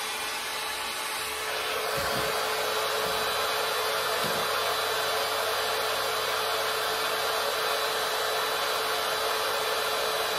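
Hot air styling brush running, its fan blowing steadily with a constant motor whine; the airflow gets louder about one and a half seconds in.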